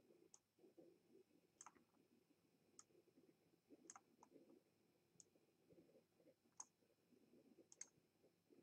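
Faint computer mouse clicks, about one a second, over near silence: pen-tool anchor points being placed one after another along a path.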